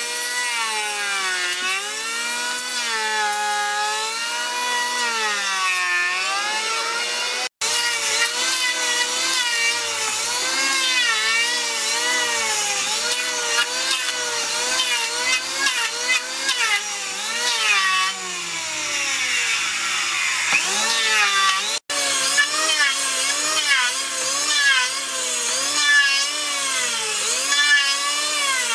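Electric hand planer running as it shaves the wooden frame, its motor whine rising and falling in pitch over and over as the cut loads and unloads it. The sound cuts out briefly twice.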